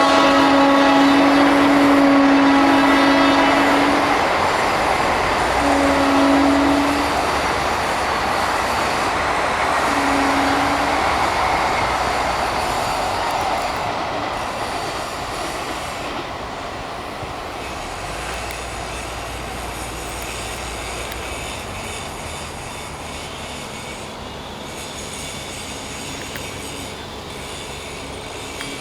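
WAP-4 electric locomotive's horn sounding three times, a long single-tone blast of about four seconds, then two shorter ones, over the rumble and wheel noise of an express train crossing a river bridge at speed. The train noise slowly fades over the second half.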